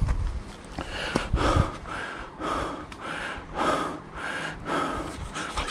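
A hiker panting heavily, fast breaths in and out about two a second, winded from climbing a very steep trail. A few low thumps sound under the breathing.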